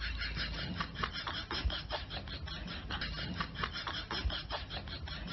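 A cat's claws clicking and scratching rapidly and irregularly on a wooden floor as it hops about.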